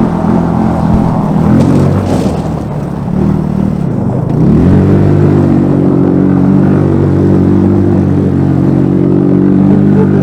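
150cc GY6 four-stroke single-cylinder scooter engine powering a Power Wheels jeep go-kart, revving unevenly, dipping about four seconds in, then climbing and holding a steady high pitch as it runs at speed.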